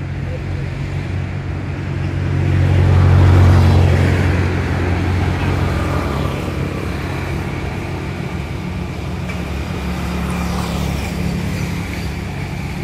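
A motor engine's low hum, swelling to its loudest about three to four seconds in and then running on steadily.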